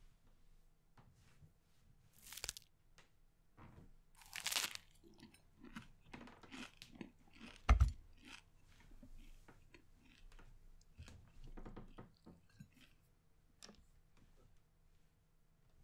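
Eating sound effect of a hamburger being bitten into and chewed. There are crunching bites about two and a half and four and a half seconds in, a dull thump just before eight seconds that is the loudest sound, then irregular crunchy chewing that thins out near the end.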